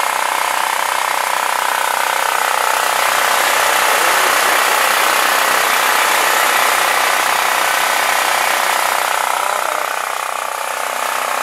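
Portable generator's engine running steadily, a little louder in the middle.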